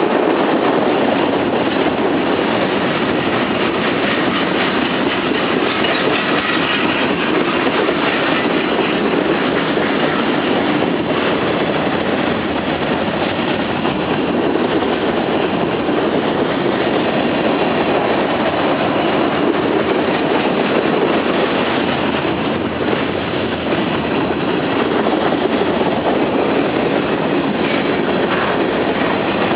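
Freight train cars rolling past, a steady loud rumble and rattle of steel wheels on the rails with some clickety-clack at the rail joints.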